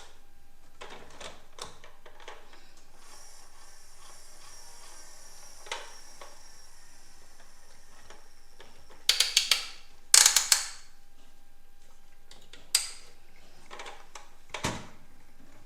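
Plastic toy vehicles being handled: scattered clicks, with two loud rattling bursts of rapid clicks about nine and ten seconds in.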